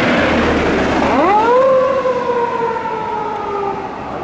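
Police car siren starting up about a second in, sweeping quickly up in pitch and then holding a long, slowly falling wail. It begins over the rush of a passing vehicle.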